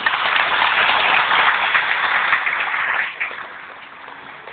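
Audience clapping together in a dense wash of applause that dies away about three seconds in.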